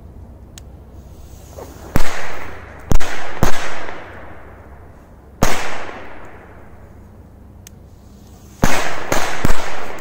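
Firecrackers going off, seven sharp bangs in three groups: three in quick succession about two seconds in, a single bang a couple of seconds later, and three more close together near the end. Each bang has a short fading echo.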